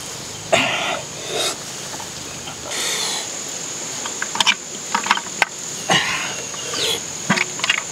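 Scattered sharp clicks and short rustling knocks as snail shells and a clay pot lid are handled, over a steady high-pitched insect drone.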